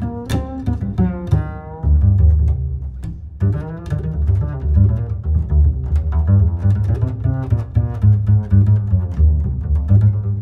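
Instrumental background music with a heavy, deep bass line.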